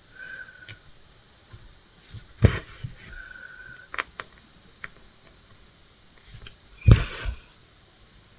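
Handling sounds of hand cross stitching: a few soft knocks and sharp clicks, with two brief thin squeaks as the needle and floss are drawn through the fabric.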